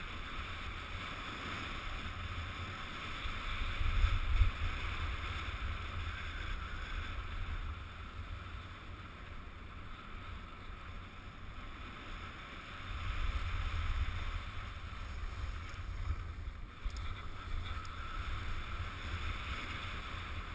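Wind rumbling on a GoPro's microphone during downhill skiing, over a steady hiss of skis sliding on snow. The wind rumble swells twice, loudest about four seconds in and again around thirteen seconds.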